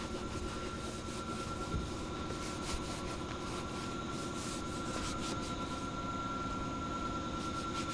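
A cloth rubbing and wiping over a car door's surface with glass cleaner, a steady scrubbing sound.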